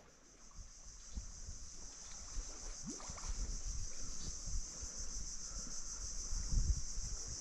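A steady, high-pitched insect chorus, with irregular low rumbling and thuds underneath.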